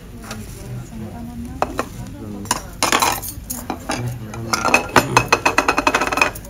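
Tableware being set down on a restaurant table: a few knocks, a clatter about halfway, then a quick run of ringing clinks near the end from bowls, a stainless rice bowl and a spoon.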